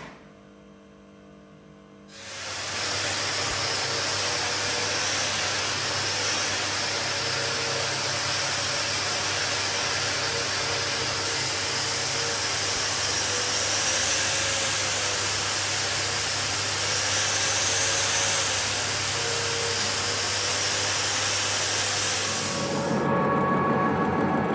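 Welding arc hissing steadily with a low hum, building up weld on the worn end of a steel roller shaft. It starts about two seconds in, stops shortly before the end, and a lathe is then heard running.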